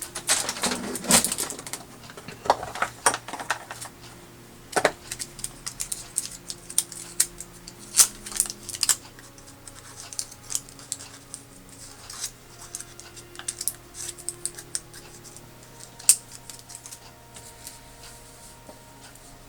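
Scattered small metallic clicks, taps and scrapes of a scalpel blade being changed on its handle, with a busy cluster of clicks near the start.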